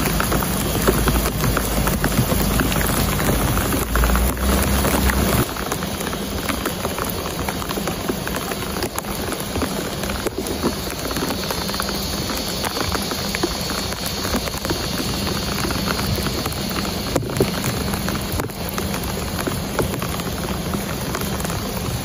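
Steady rain falling on grass and leaves: an even hiss full of small drop ticks. A low rumble underneath stops about five seconds in.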